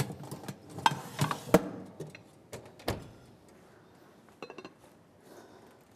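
Cookware being handled: several sharp knocks and clatters in the first three seconds, then a brief light rattle of about four quick ticks past the middle.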